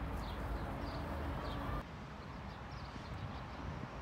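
Small birds chirping in short falling calls over a steady low rumble. The background changes abruptly about two seconds in.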